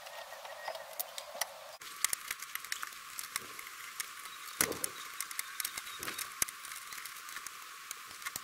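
Screwdriver backing out the small screws of an outlet cover and a light switch: faint scattered small clicks and taps over a steady hiss.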